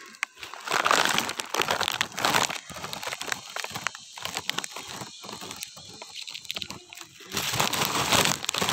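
Katuday (Sesbania grandiflora) leaves rustling and crackling right against the microphone as a hand pulls at the foliage. The rustling comes in two loud spells, the first about a second in and the second near the end, with scattered crackles between.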